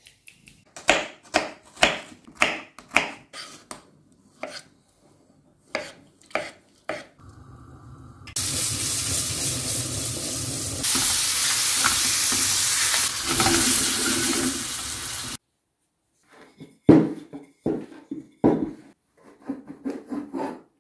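Food-preparation sounds: a run of quick knocks and scrapes of utensils, then a steady hiss lasting about seven seconds, then more knocks near the end as dough circles are cut with a glass jar on a wooden board.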